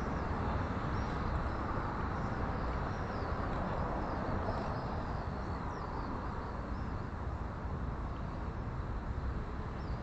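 Open-air background: a steady hum of distant road traffic with small birds chirping faintly on and off, mostly in the first half.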